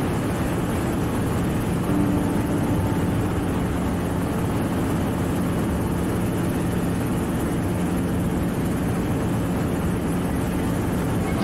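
Helicopter's engine and rotor running in flight, a steady drone heard from inside the cabin.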